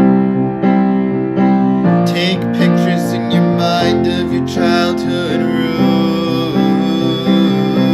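Upright piano playing a slow, even pattern of chords, with a wordless sung line joining in about two seconds in.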